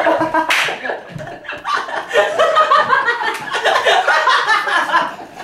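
Several people laughing hard, with a short sharp noise about half a second in.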